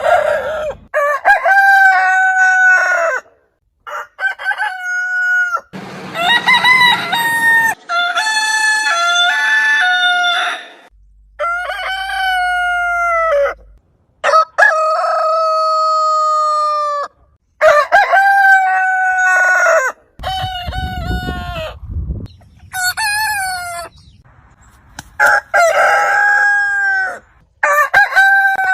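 Roosters crowing one after another, about a dozen separate crows of a second or two each, from different birds at different pitches, with short silent gaps between them.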